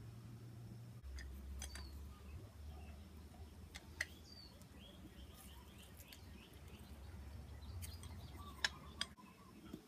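A handheld citrus press squeezing citrus halves gives a few sharp clicks over a low steady hum, with faint chirps of small birds in the background.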